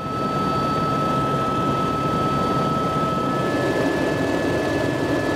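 Helicopter in flight, heard from inside the cabin: steady rotor and engine noise with a thin high whine, whose pitch steps up slightly about three seconds in.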